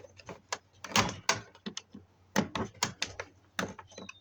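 Irregular clicks and knocks of plastic and metal dishwasher parts being handled and pried apart, the loudest pair about a second in, then a quick run of taps a little later.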